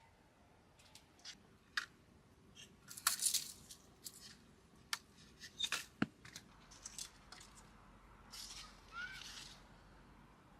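Scattered sharp clicks and snips with short bursts of crisp rustling, the loudest about three seconds and six seconds in, and a brief rising chirp near the end.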